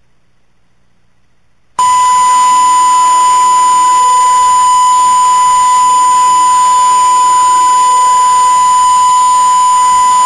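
Television test tone sent with colour bars once the station has signed off: one steady, loud beep at a single pitch that starts abruptly about two seconds in and holds unchanged, over a faint hiss.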